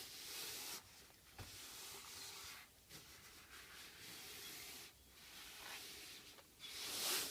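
EVA foam sheet rubbing and scraping as it is pressed and worked into a tool box drawer, in a run of separate strokes, the loudest near the end.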